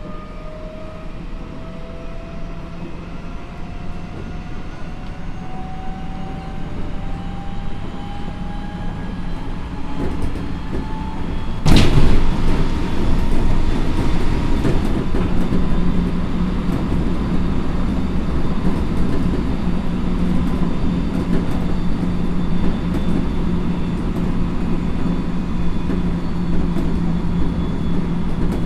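Odakyu 1000 series electric train, heard from on board, with its Mitsubishi GTO-thyristor VVVF inverter and traction motors whining and climbing slowly in pitch as the train gathers speed. About twelve seconds in, a sudden loud rush sets in and the running noise stays louder. The whine then holds at a steady pitch over the rumble of the wheels.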